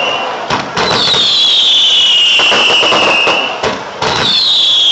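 Fireworks display: two long high whistles, each gliding slowly down in pitch, one starting about a second in and another near the end, over dense crackling and a few sharp bangs.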